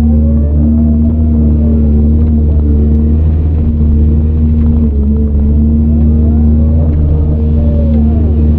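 CAT 395 excavator's diesel engine running steadily under load, heard from inside the operator's cab, with a higher whine that rises and falls twice as the machine works.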